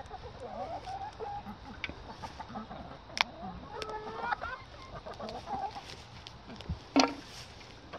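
A flock of laying hens clucking softly as they feed, with a louder call about halfway through. A few sharp clicks or knocks break in, the loudest about a second before the end.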